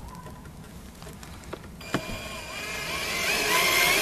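A few light clicks, then a cordless drill-driver starts about two seconds in, its motor whine rising in pitch and getting louder before holding steady as it drives a screw into the top of a wooden cabinet.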